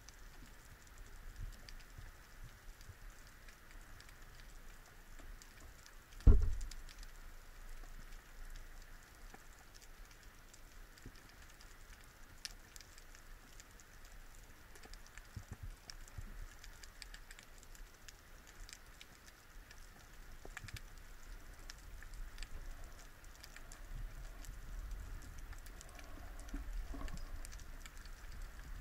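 Underwater ambience: a fine, steady crackling and ticking, with one loud low thump about six seconds in.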